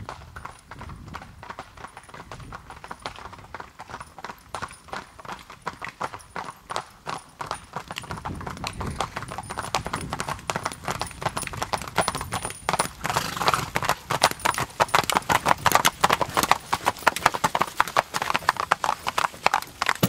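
Hooves of a carriage-horse team clip-clopping on an asphalt road in a quick, steady patter. They grow louder as the team approaches and are loudest over the last several seconds.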